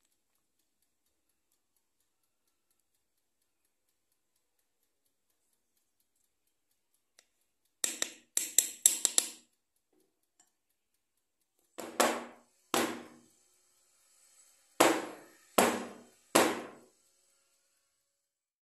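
Metal loaf tin of cake batter tapped down on the table, which knocks air bubbles out of the batter: a quick run of about five knocks about eight seconds in, then five more single knocks about a second apart, each ringing briefly.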